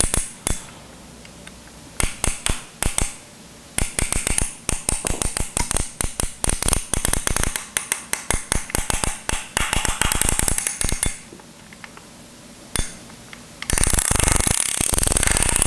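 Steam iron's control dial being turned, clicking through its detents in quick runs of clicks separated by short pauses. Near the end the dial is spun faster, giving a rapid, nearly continuous run of louder clicks.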